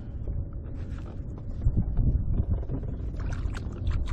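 Wind rumbling on the microphone and water lapping against a kayak's hull, with a few short knocks scattered through, most of them in the second half.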